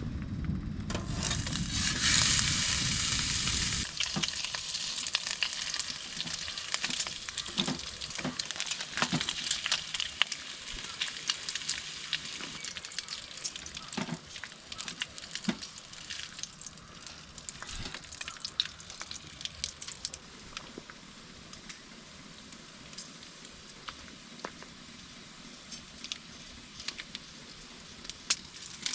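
Food frying in a hot pan: a loud hiss for the first few seconds, then steady sizzling with small pops and crackles that slowly dies down.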